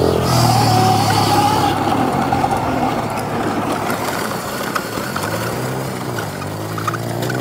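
Dirt bike motor running while riding a dirt trail, its pitch rising and falling with the throttle, under a steady rush of wind noise. The motor drops back about two seconds in and picks up again in the second half.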